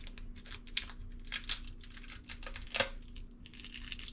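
Thin plastic lid being pried and peeled off a plastic tub of shucked oysters: a run of crinkles and crackles, with a sharper click about three seconds in.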